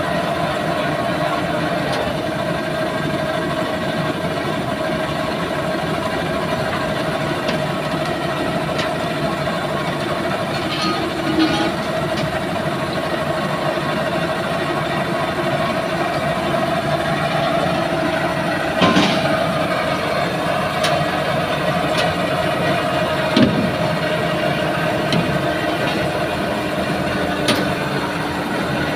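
Heavy tow truck engine idling steadily, with a few short knocks.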